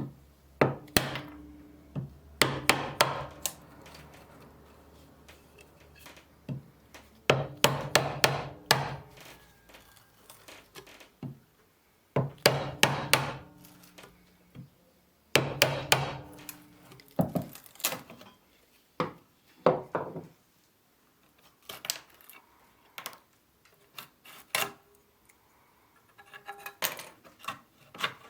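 Hand tools knocking and tapping on an old handsaw: bursts of quick, sharp knocks a few seconds apart, some followed by a brief ringing tone.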